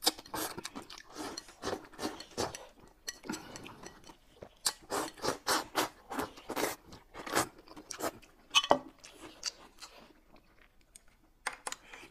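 Close-miked eating sounds: noodles being slurped off a plate and food being chewed and bitten, a quick run of short wet smacks and slurps that thickens in the middle and thins out near the end.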